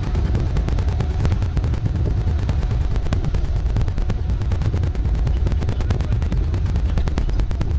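Loud, steady low rumble of a shrimp trawler under way, its engine running and wind buffeting the microphone, with a dense crackle over it.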